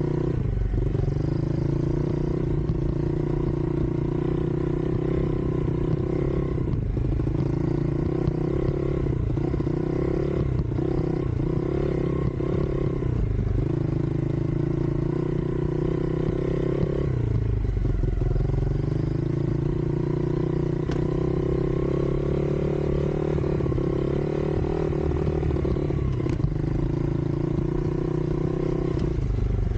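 Youth off-road motorbike riding across rough grass, its motor running continuously under load. The note sags and climbs back several times as the throttle is eased off and opened again.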